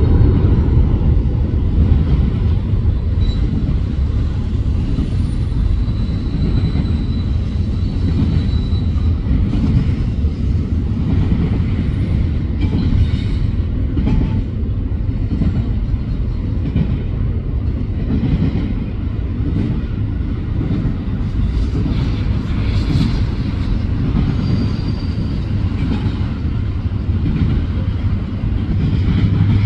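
Union Pacific intermodal freight train rolling past at speed: a steady, loud, heavy rumble of wheels on rail.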